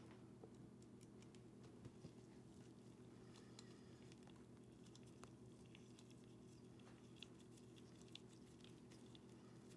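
Near silence over a low steady hum, with faint, scattered light clicks and scrapes of a slender tool turning the locking screw into the metal body of a Fuji Spray M-Model HVLP spray gun.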